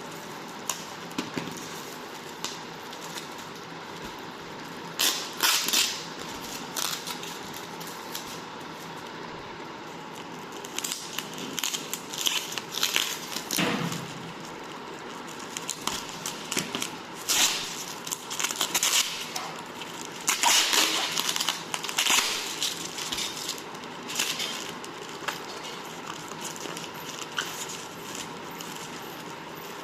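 Handling noises from an unboxing: irregular crinkling, rustling and clicks that come in clusters, over a steady background hiss.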